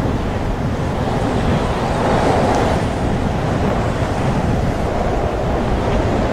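Strong wind blowing over the microphone and a choppy, wind-whipped sea: a loud, steady rush with no distinct events.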